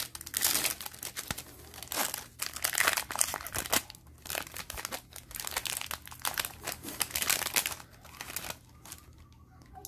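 Foil wrapper of a trading-card pack crinkling as it is torn open and peeled off the cards, a run of rustles that thins out near the end.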